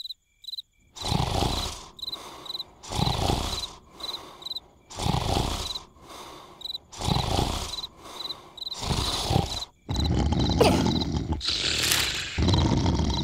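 Cartoon snoring: loud, rasping snores repeating about every two seconds, over crickets chirping. From about ten seconds in the snores run together into a denser, louder stretch of noise.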